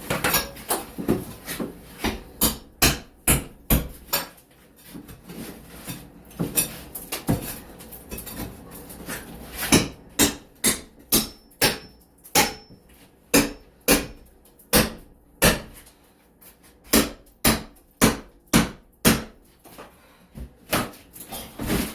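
Repeated hammer blows during wall demolition: sharp strikes, about two to three a second, in runs separated by short pauses.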